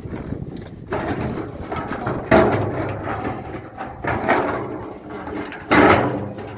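A metal drum being tipped over and shifted into place, giving about four irregular clanking knocks and scrapes, the loudest near the middle and near the end.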